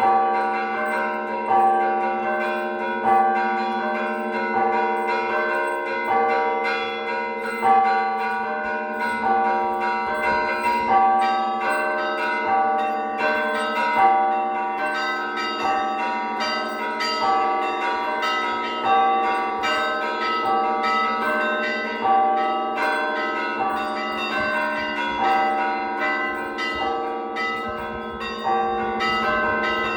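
Russian Orthodox festive church bell ringing (zvon): several bells of different pitch struck by one ringer in a repeating rhythmic pattern, smaller bells chiming over a sustained low hum, with a heavier stroke about every second and a half.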